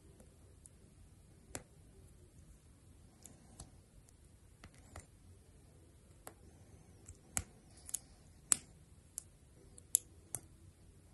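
Small plastic model-kit parts being pressed and snapped together by hand: a dozen or so short, sharp clicks at irregular intervals, the loudest ones in the second half.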